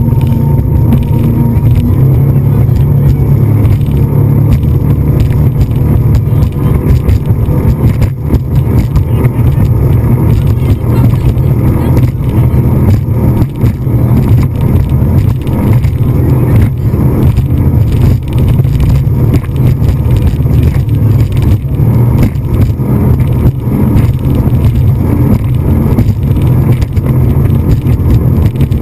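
Speedboat engine running steadily at speed, heard as a loud, low, constant rumble with ragged wind buffeting on the boat-mounted camera's microphone.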